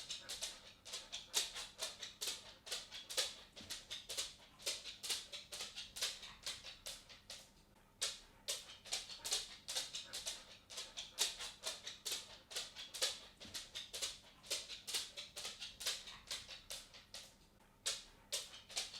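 A dog walking on a wooden floor, its claws clicking on the boards in a quick, uneven patter of several clicks a second. The walking pauses briefly about eight seconds in and again near the end.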